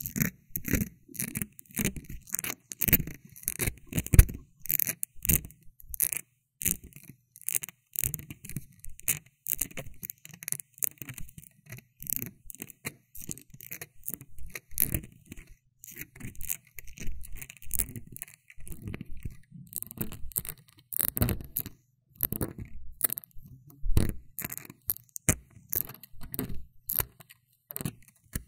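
Irregular scratching and crackling very close to a binaural dummy-head microphone, several short scrapes a second, with a few louder ones about 4 s and 24 s in.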